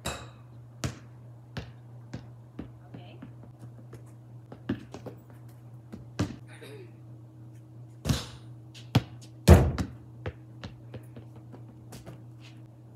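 Basketball bouncing on a concrete driveway: a string of irregular thuds, the loudest about nine and a half seconds in, over a steady low hum.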